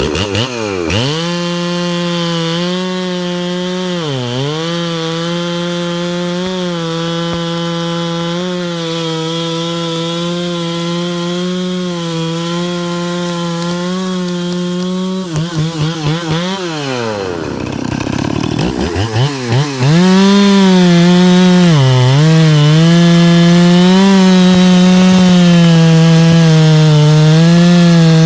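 Stihl 460 Magnum two-stroke chainsaw running at high revs, cutting wood. Its pitch dips briefly several times as it loads in the cut. About halfway through it drops almost to idle and revs back up, and it runs louder for the last third.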